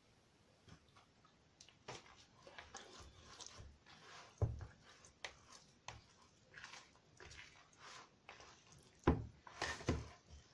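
Oiled hands kneading soft, runny yeast dough for kulich in a plastic bowl: irregular wet, sticky squelches and slaps, with louder thumps about four and a half and nine seconds in.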